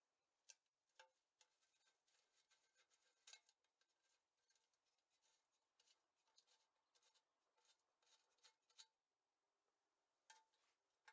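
Faint, irregular metallic clicks and light scraping of a screwdriver and small screws being handled at a bench grinder's wheel guard during disassembly, pausing briefly near the end.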